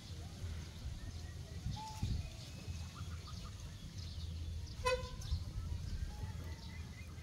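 Outdoor ambience: a steady low rumble with scattered faint bird chirps, and one short, high-pitched call with a strong buzzy edge about five seconds in.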